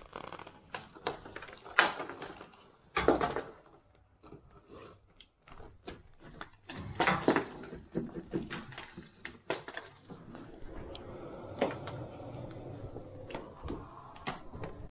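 Hands working the edge of a stretch-ceiling film along its loose wall-mounted profile: irregular sharp clicks and snaps with rustling, the loudest about two, three and seven seconds in.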